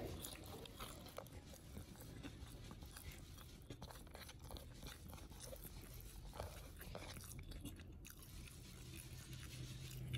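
Faint sounds of eating by hand from a plastic plate: soft scattered clicks and scrapes as fingers gather rice, over a low steady hum.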